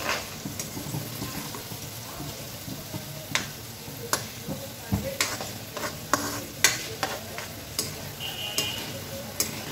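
Garlic cloves frying in hot oil in a metal kadai with a soft, steady sizzle, while a metal ladle stirs them, scraping and clinking against the pan at irregular moments.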